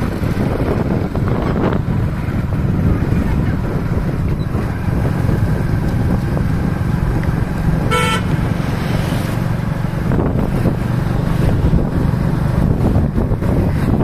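Wind rushing over the microphone and the steady low rumble of a moving vehicle on the road, with one short vehicle horn toot about eight seconds in.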